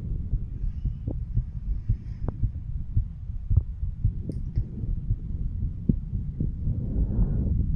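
Human heartbeat heard through a stethoscope on the chest: a steady run of low, dull beats, with a few sharp clicks and a short rush of noise near the end.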